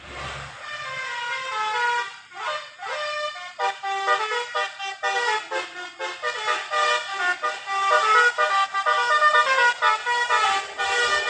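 Bus telolet horn: a multi-tone musical air horn on a bus, playing a quick tune of stepped notes that starts about half a second in.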